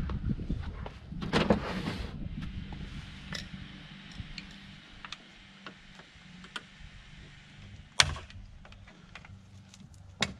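Hand-work on a bare car door: rustling and knocking in the first two seconds, then scattered light clicks of fittings and connectors being worked loose, with one sharp click about eight seconds in and another near the end.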